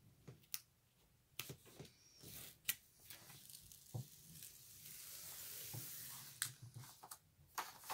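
Large paper cover sheet rustling and being peeled back from a diamond-painting canvas, with scattered sharp crinkles and a soft, longer peeling hiss in the second half.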